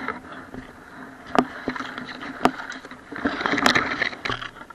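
Small RC boat running through shallow water, heard from an onboard camera: a continuous rush of water against the hull with a faint steady motor tone. About five sharp knocks are spread through it, the last ones as the boat pushes into reeds.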